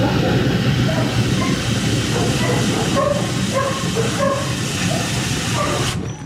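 High-pressure kennel wash-down hose blasting water into a blocked drain, a loud steady hiss that cuts off suddenly near the end.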